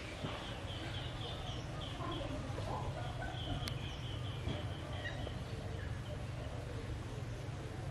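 Rapid runs of short, high chirping calls, about six a second, heard twice, over a steady low rumble.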